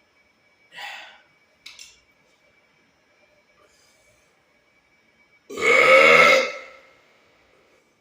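A man lets out one loud, long burp about five and a half seconds in, after two short, faint sounds near the start.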